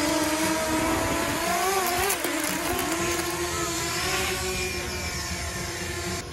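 Motors and propellers of a DJI Mini 2 quadcopter, rebuilt as an FPV drone, whining steadily; about two seconds in the pitch wavers up and down for a second or so.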